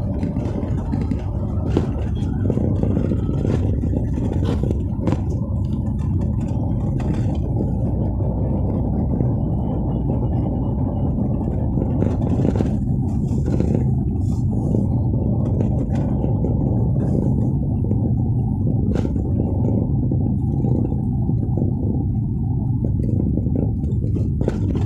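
Steady low rumble of a car driving, its road and engine noise heard from inside the cabin, with occasional light clicks.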